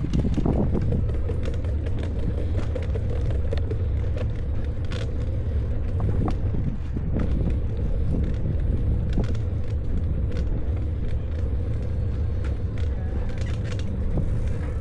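Riding noise from a bicycle on the move: a steady low rumble with scattered light clicks and rattles.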